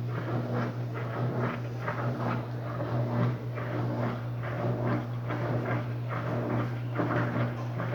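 Electrolux LTD13 13 kg washing machine running: a steady low motor hum with irregular swishing over it.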